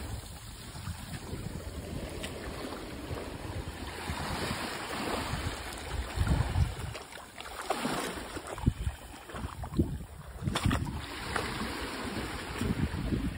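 Small waves lapping and washing over a pebbly sand shore, with wind gusting on the microphone.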